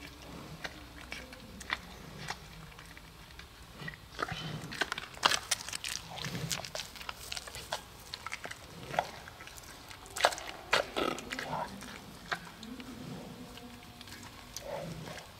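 Giant panda chewing a steamed cornbread (wotou) close up: wet smacking and chomping with sharp clicks of the teeth, busiest in the middle of the stretch.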